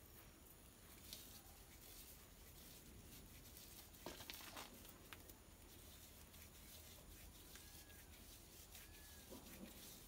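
Faint rustling and scraping of coconut coir fibres rolled between bare palms to twist them into twine, with a few short, slightly louder rubs about a second in, around four seconds in and near the end.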